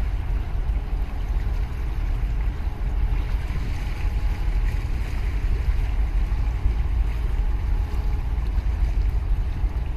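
Steady deep rumble and rushing noise as a large container ship passes close by: wind buffeting the microphone, mixed with the ship's low drone and the wash of water.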